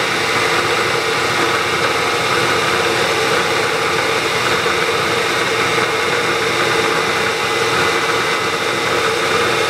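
Bridgeport milling machine running steadily, its quarter-inch end mill slowly cutting a slot in a vise-held block: an even machine hum and hiss with several steady tones.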